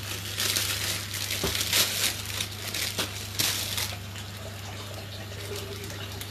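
Intermittent crinkling and rustling of plastic packaging as corn on the cob is handled, in irregular bursts over a steady low hum.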